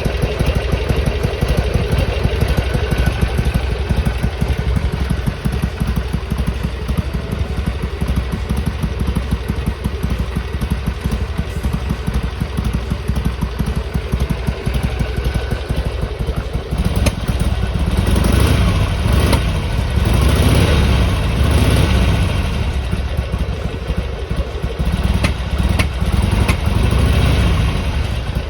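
Harley-Davidson Sportster XL883R's 883 cc V-twin idling as it warms up. From a little past halfway it runs louder, rising and falling in pulses for about ten seconds.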